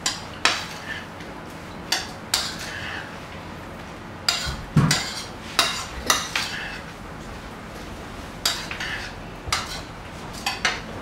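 A metal spoon clinking and scraping against a mixing bowl as diced pineapple salsa is stirred, in about a dozen irregular knocks.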